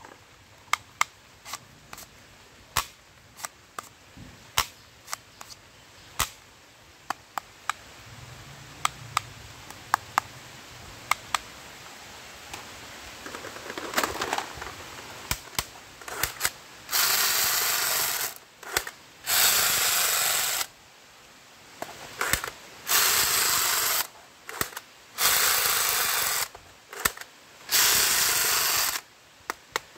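Plastic toy guns clicking and clacking as they are handled and their triggers worked. In the second half come five loud bursts of harsh noise, each about a second long, from a toy gun being fired.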